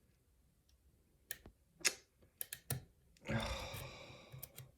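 Small sharp clicks from a pin-tumbler lock under picking, a few irregular ticks as the pick and tension tool work and the set pins drop back, the lock losing its set. Near the end comes a rushing noise about a second long.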